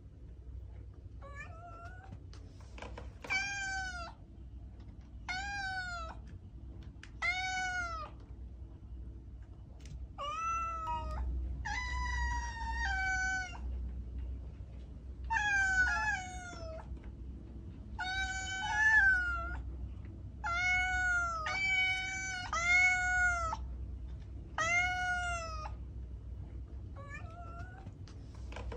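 A cat meowing over and over, about fifteen meows, each rising and then falling in pitch. Some come singly with pauses between them, others two or three in quick succession. A low steady hum runs underneath.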